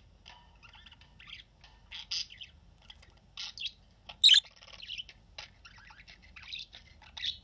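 Budgerigars chirping and chattering in a quick run of short, high chirps and warbles, with one louder, sharper call about four seconds in.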